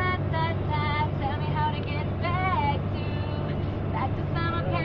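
Young voices singing a melody over the steady low drone of a bus engine, heard from inside the moving coach.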